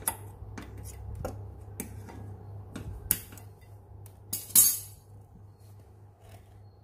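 Small hand tools and metal parts clicking and clinking in irregular knocks while a broken wire in a motorbike sensor harness is spliced back together. The loudest clatter comes about four and a half seconds in, over a steady low hum.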